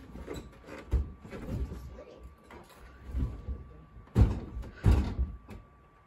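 Knocks and thumps from a new LG side-by-side refrigerator as its freezer door is handled and swung open, the two loudest about four and five seconds in.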